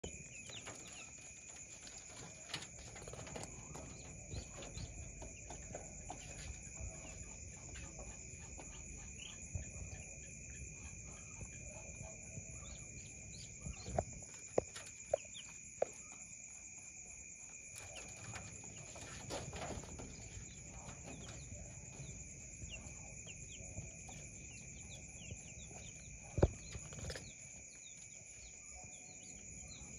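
Baby monkey clambering and jumping in a wire-mesh and wood cage: four sharp knocks about halfway through and one louder knock near the end. Underneath are faint chirping and a steady high-pitched whine.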